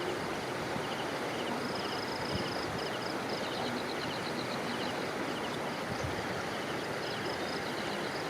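Steady rush of flowing floodwater, with a high chirping in short repeated trills above it.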